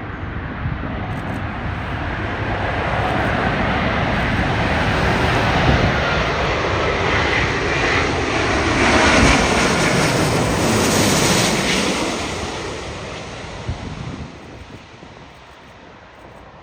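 Large jet airliner flying low past on its landing approach. The engine noise builds steadily, is loudest in the middle, then fades away near the end.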